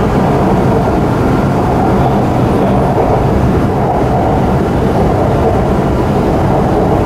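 Shanghai Metro Line 9 train running at speed, heard from inside the carriage: a loud, steady rumble of wheels and running gear with a faint steady hum in it.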